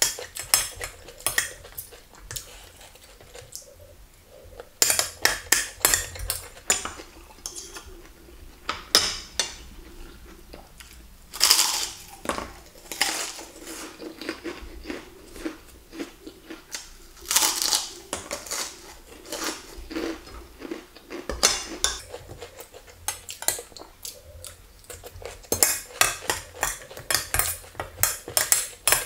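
Metal spoon and fork scraping and clinking against a plate in repeated clusters, with quieter gaps between them.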